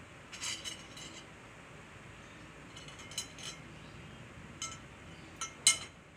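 Spoons clinking and tapping against plates and a serving bowl as rice is scooped and served: short clinks in a few small clusters, the loudest near the end.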